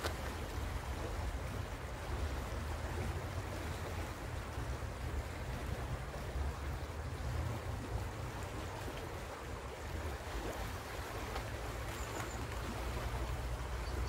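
Fast-flowing river water rushing past the rocks along the bank, a steady even wash, with a steady low rumble underneath.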